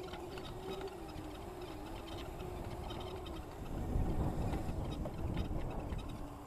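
Steady whine of an electric dirt bike's motor while riding over grass, with a low rumble swelling up about four seconds in.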